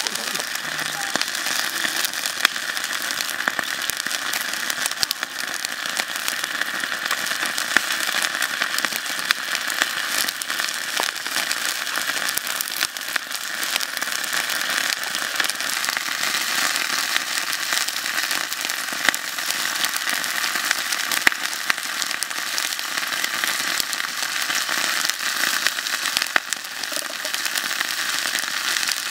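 Water boiling hard in a shallow metal pan over a wood fire: a steady, dense bubbling crackle with many small sharp pops.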